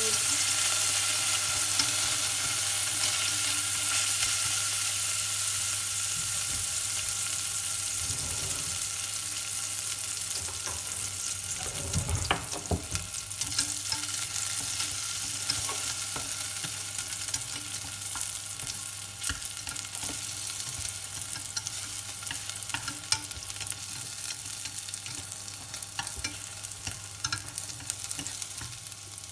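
Small pieces of food frying in oil in a stainless steel pot, a steady sizzle that slowly dies down. Wooden chopsticks stir the pieces and tap against the pot now and then, most sharply about twelve seconds in.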